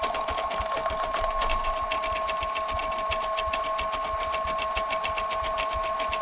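Electric drain snake running with its cable spinning down a washing-machine drain line: a steady motor hum with a rapid, even ticking of the rotating cable, about eight to ten clicks a second.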